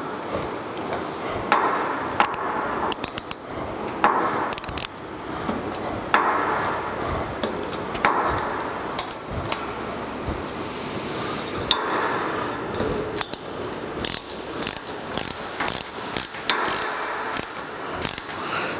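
Hand ratchet wrench clicking in repeated bursts of strokes as the light bar's mounting bracket bolts are tightened.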